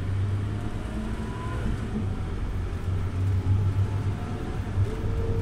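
Scania OmniLink city bus engine running with a steady low hum and rumble, heard from inside the cabin. A faint whine rises slightly near the end.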